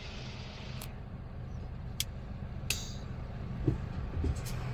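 Truck engine running steadily at low speed, a low hum heard from inside the cab, with a few brief sharp clicks over it.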